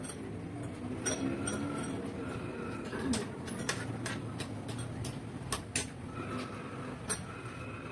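Eating sounds at a table: low handling and chewing noise with scattered sharp clicks and clinks of spoons and dishes, about seven over the few seconds.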